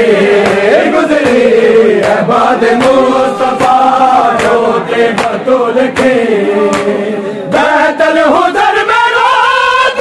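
Men's voices chanting a Shia noha together in a slow, wavering melody, with sharp slaps of chest-beating (matam) about once a second in time with it. The singing dips briefly about three quarters of the way through, then comes back in.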